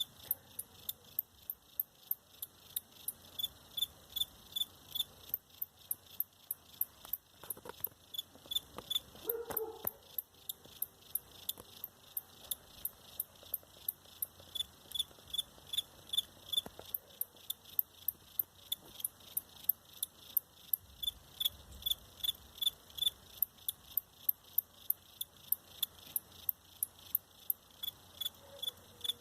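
A cricket chirping steadily: short, high-pitched chirps repeating evenly at about three a second. A brief, fainter lower sound comes about nine seconds in.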